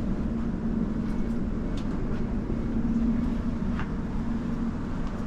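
Steady running noise inside a passenger train coach: a low rumble with a constant hum.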